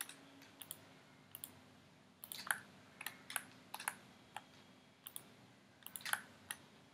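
Irregular clicking of a computer mouse and keyboard: scattered single clicks and a few quick clusters of clicks.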